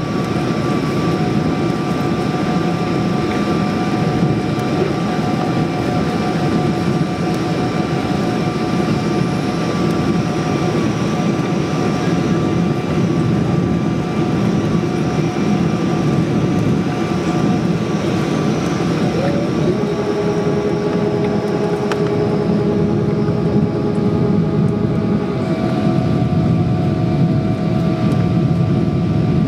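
Steady roar of a Boeing 777-300ER's GE90-115B engines and airflow, heard from inside the cabin while the jet climbs through cloud, with several steady whining tones above the roar. About two-thirds of the way through, a new lower tone comes in and the higher tones shift in pitch.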